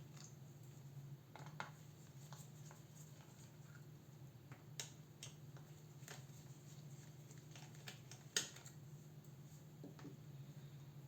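Scattered small clicks and taps of hand tools working on a laptop's casing during disassembly, the loudest a little past halfway, over a faint steady low hum.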